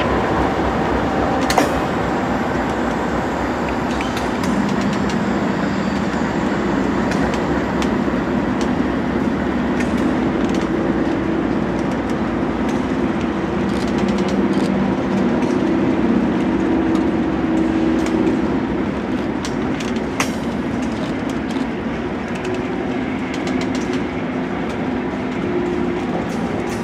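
Union Pacific freight train passing close by: diesel locomotives running past with a steady engine drone, over the continuous rumble of wheels on the rails and scattered clicks and clanks.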